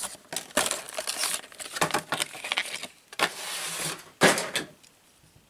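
A plastic blister pack and its cardboard backing card crinkle and tear as a small die-cast toy car is pulled out. The rustling comes in irregular bursts with a few sharp clicks, and the loudest click comes a little after four seconds in.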